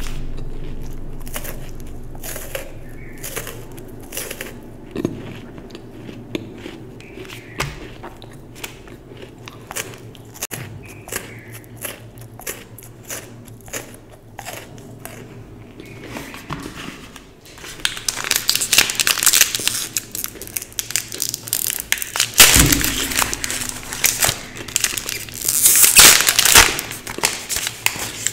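Close-up eating sounds: small crunches and mouth clicks as pieces of chocolate are chewed. From a little past halfway, loud crinkling and rustling of foil and paper chocolate wrappers being handled and unwrapped.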